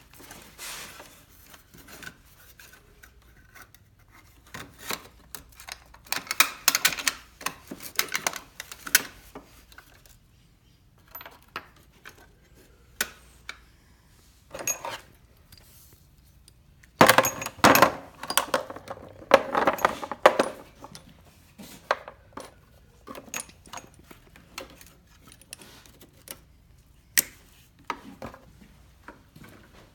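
Hand tools and small metal parts clinking and clanking now and then during work on an ATV, with busier bursts of handling about a quarter of the way in and again a little past halfway.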